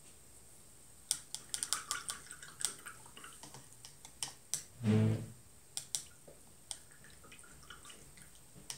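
A paintbrush being rinsed in a cup of water, tapping and clicking against the cup in quick irregular taps. About halfway through there is a brief low hum, the loudest sound.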